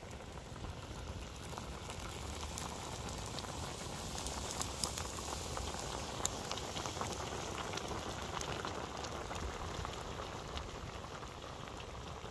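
Sheep heads and trotters boiling hard in broth in a large, wide pan over a wood fire: a steady bubbling, with many small scattered pops that come thickest in the middle.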